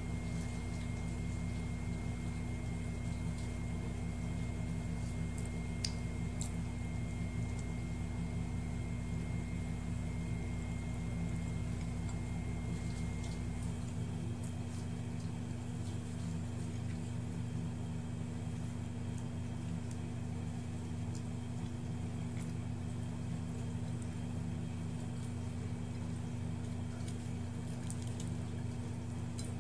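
Faint wet squishing of fingers peeling shrimp and mixing fried rice by hand, over a steady low hum. The deepest part of the hum and a faint high whine stop about halfway through.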